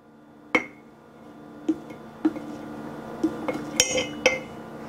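Table knife leveling off a plastic scoop of powdered shake mix over a glass jar: a string of light clicks and clinks, about seven, with a couple of brighter ringing clinks near the end. A steady faint low hum sits underneath.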